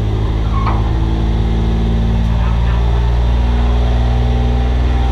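Race car engine running hard at a fairly steady speed, a loud low drone heard from inside the stripped cockpit.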